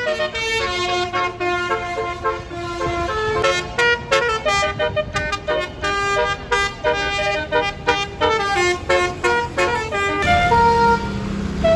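Tour bus basuri (telolet) musical horn playing a quick melody of short notes that step up and down. About ten seconds in it switches to longer held notes over a low engine rumble.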